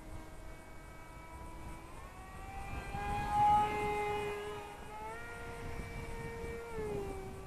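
Seal Wing G1500 RC glider's electric motor and propeller whining overhead. The pitch steps up about two seconds in and again about five seconds in, then drops near the end.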